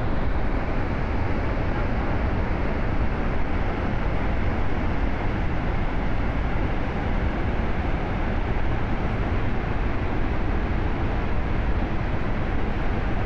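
Waterfall: a steady, loud rush of falling water, heavy in the low end.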